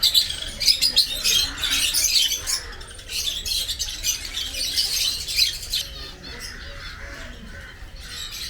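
A flock of birds squawking and chattering together, many calls overlapping, thinning out after about six seconds.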